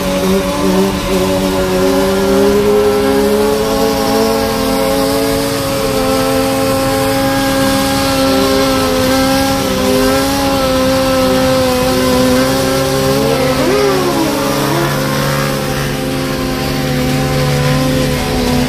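Sport motorcycle engines droning at highway speed, heard from inside a moving car over road noise. About 13 seconds in, one engine revs briefly up and back down.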